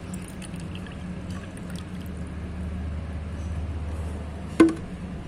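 Water pouring steadily into a plastic bottle, filling it as the level rises, over a steady low hum. One sharp click about four and a half seconds in.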